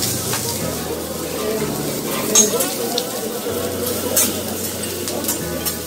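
Food sizzling on a steel teppanyaki griddle, with a metal spatula scraping and clinking against the plate as the chef turns the pieces. Several sharp clinks stand out, the loudest about two and a half seconds in and just after four seconds, over a murmur of voices.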